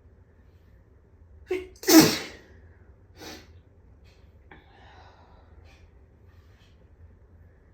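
A person's loud allergic sneeze about two seconds in, with a short sharp lead-in just before it and a quieter burst about a second after. It is a dust-allergy sneeze.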